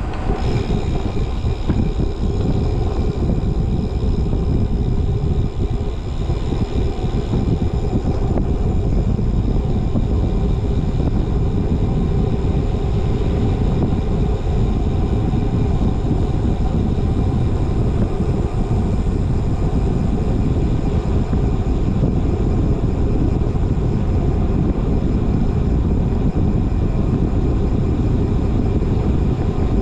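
Wind rushing over the microphone of a camera riding on a moving bicycle: a loud, steady low rumble of wind noise.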